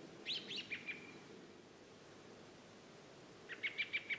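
A small bird singing two short phrases of quick, high, down-slurred notes, the second about three seconds after the first, each ending on a brief steadier note.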